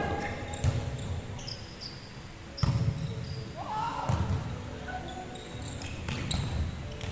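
Volleyball rally: a ball struck by hands several times, the sharpest hit about two and a half seconds in, with players calling out on court, echoing in a large sports hall.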